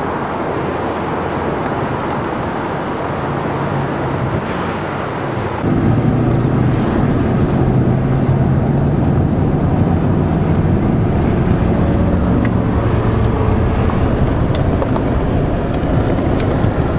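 Steady car engine and road rumble heard from inside the vehicle's cabin. It gets suddenly louder about six seconds in, where a low engine hum rises and falls a little in pitch.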